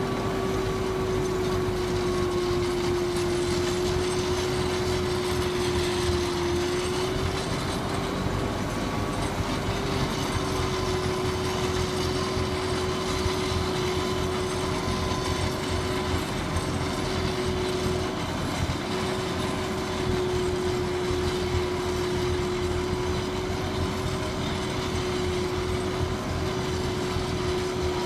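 Trejon Optimal 2650HD tractor-mounted snow blower driven by a 160 hp Fendt Vario tractor, blowing heavy snow. It runs steadily, a constant whine over the noise of the engine and the thrown snow.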